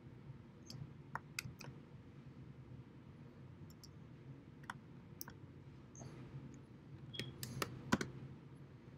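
Mouse clicks and computer keyboard keys typed in short, irregular runs, the loudest cluster near the end, over a low steady hum.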